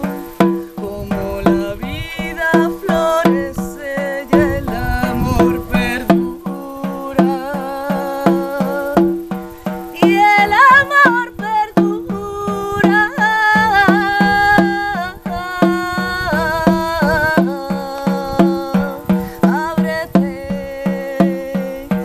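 Shamanic frame drum struck with a padded beater in a steady, even beat, its low boom ringing under a woman singing a chant-like ícaro melody. The singing grows stronger and higher from about halfway through.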